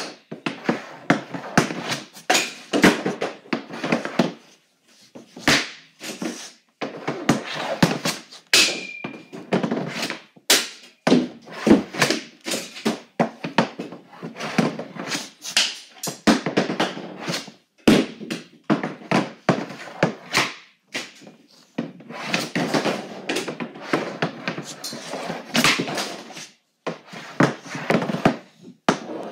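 Bauer Nexus Geo hockey stick handling and shooting pucks on a hard floor surface: bursts of quick clacks and scrapes of blade on puck and floor, broken by hard single hits as pucks strike the plywood backstop and net, over and over.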